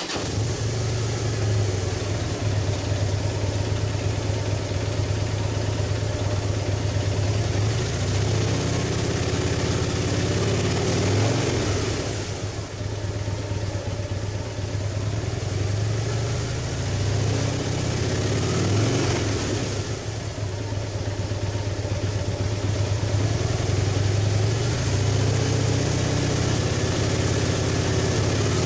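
2012 Harley-Davidson Dyna Wide Glide's air-cooled V-twin idling just after starting, heard through its stock Japanese-market mufflers. The idle runs steadily, dipping briefly in level twice.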